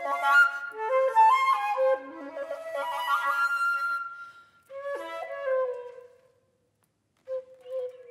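Solo flute playing quick running passages, then a phrase that ends on a held note fading out about six seconds in. After a pause of about a second, a new phrase begins on a lower sustained note with small wavering ornaments.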